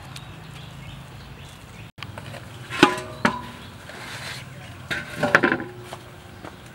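Large aluminium basin knocked and clanking: two knocks about three seconds in, then a quick cluster of clangs about five seconds in. Each leaves a short metallic ring, and the last ring lingers briefly.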